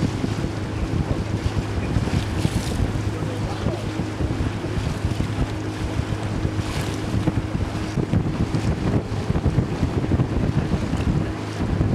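Motor boat's engine running at a steady drone while the hull moves through choppy river water, with wind buffeting the microphone and a couple of louder splashes.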